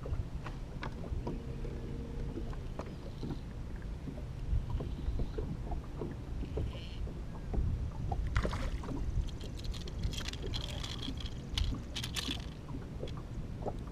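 Water lapping against a bass boat's hull with a low steady rumble, and several splashes in the second half as a hooked bass is brought to the boat and lifted out of the water.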